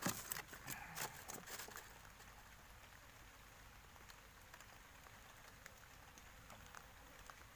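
Light rain falling on the river and boat: a faint, even hiss with scattered small drop ticks. A run of sharp clicks and knocks fills the first two seconds.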